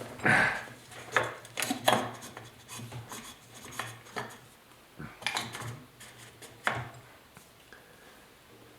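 Metal motorcycle parts and fittings being handled and fitted by hand: irregular clinks, knocks and scraping rubs, loudest in the first two seconds, with a few more clinks later on.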